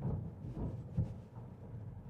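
Car cabin noise while driving: a steady low engine and road rumble, with a couple of brief low thumps about half a second and a second in.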